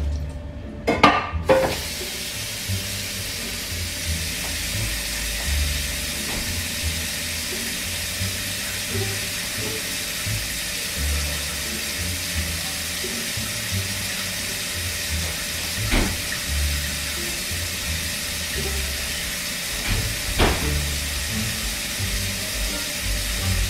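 Kitchen faucet running into a stainless steel sink: a steady hiss of falling water, with a couple of short knocks later on.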